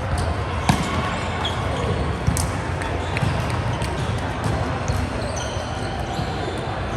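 Indoor volleyball game on a hard court: sharp ball strikes, the loudest about a second in and again past two seconds, with short high squeaks, over steady echoing hall noise.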